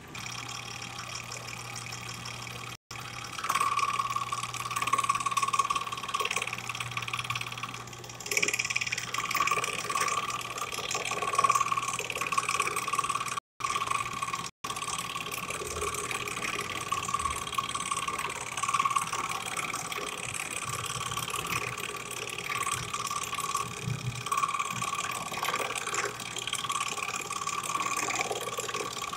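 Drill press running with its bit cutting a slot into a wooden airgun stock: a steady motor hum with a rasping cut that gets louder a few seconds in. The sound cuts out briefly three times.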